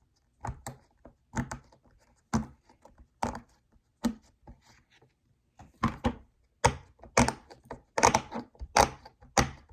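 A plastic fidget toy being pressed and snapped by hand, giving a string of sharp clicks and thunks. They come sparsely at first, then faster and louder from about six seconds in.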